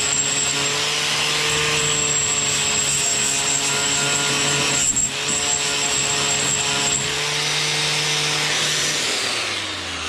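Angle grinder with a wire wheel running steadily against a steel sawmill bandsaw blade, scrubbing off surface rust. Near the end it is switched off and winds down, its whine falling in pitch.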